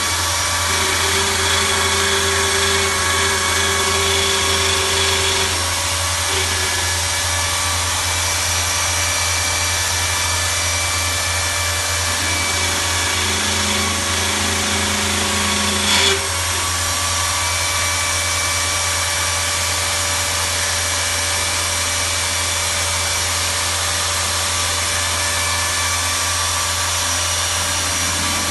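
Corded Milwaukee power tool mounted on a lathe carriage, running steadily as it machines a metal ring held in the chuck, with a steady motor whine and hum. A brief sharp knock about 16 seconds in.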